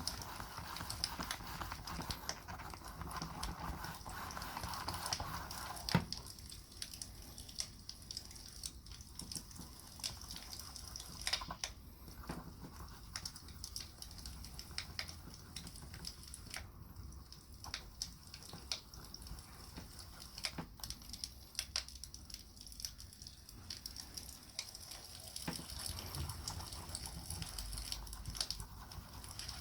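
Wood campfire crackling, with irregular small pops and snaps throughout. A steadier noise sits under the crackle for the first six seconds and ends on one sharp crack.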